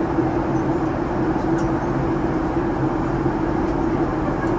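Steady cabin noise of a Boeing 737 airliner in flight: a constant drone of engines and rushing air with an unchanging hum.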